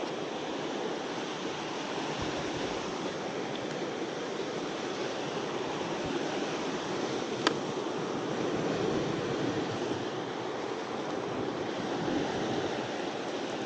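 Sea waves washing against the shore, a steady rushing noise. A single sharp click about seven and a half seconds in.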